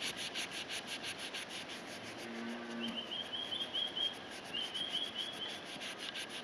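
Rubber-bonded abrasive rust eraser (Sabitoru) rubbed in quick back-and-forth strokes over a knife's metal bolster and handle, about five scratchy strokes a second, scrubbing off surface rust and tarnish.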